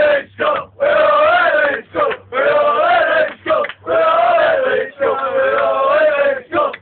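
A group of men singing a rugby league terrace chant loudly together, in held phrases of about a second each broken by short pauses for breath.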